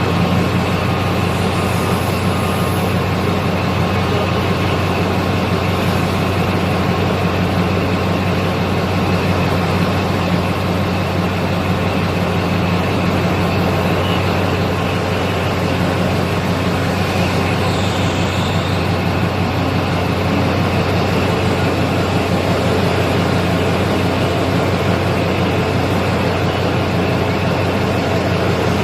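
Heavy mining diesel engines of an excavator and haul trucks running steadily under load, a continuous low drone.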